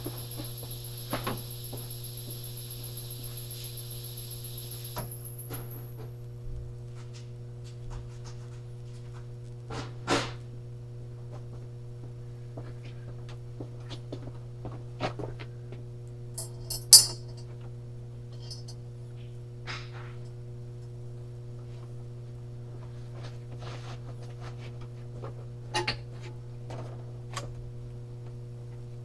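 Steady electrical mains hum of a welding shop, with scattered short knocks and clatter, the loudest a sharp knock a little past halfway. A high hiss stops about five seconds in.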